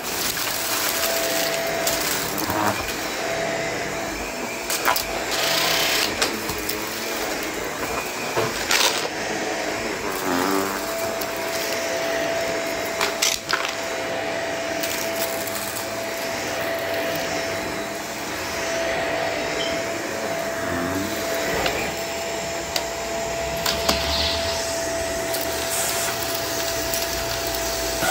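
Vacuum cleaner running steadily with a constant whine, picking up debris that clicks and rattles through it now and then.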